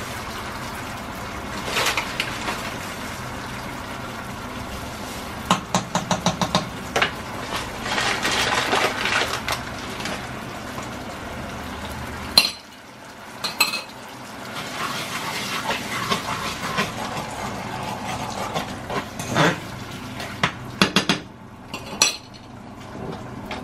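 Metal spoon clinking and scraping against a nonstick pan as a sauce is stirred, with quick runs of taps about six seconds in and again near the end. A steady low hiss drops away about halfway through.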